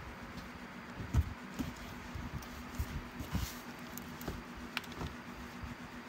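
Clothes and plastic wrapping from an opened package being handled and rummaged through: soft rustling with scattered light knocks, the loudest about a second in, over a faint steady hum.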